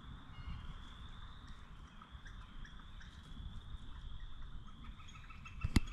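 Faint woodland ambience: low wind rumble on the microphone under a steady high-pitched chorus of distant animal calls, with a few soft ticks and a sharp handling click near the end.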